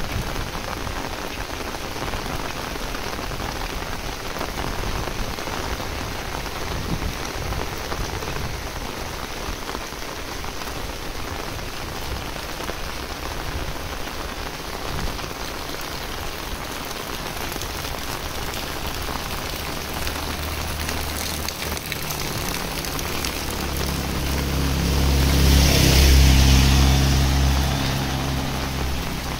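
Heavy rain falling steadily on a road and tin roofs. In the last few seconds a vehicle passes, its engine hum and tyres hissing on the wet road growing louder, then fading away.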